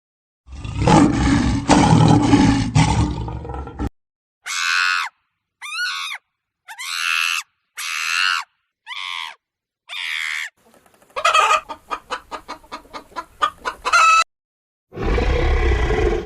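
A string of separate animal-call clips played one after another: a loud, deep call lasting a few seconds, then six short calls with sliding pitch, then about three seconds of rapid clucking-like pulses, and another loud, deep call starting near the end.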